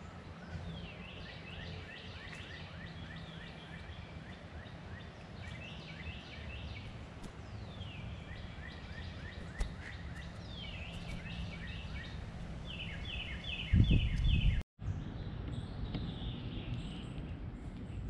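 A songbird singing in the background in phrases of quick, downslurred whistled notes, a phrase every few seconds, over a low steady hum. About 14 s in there is a brief loud low rumble, then the sound drops out for an instant.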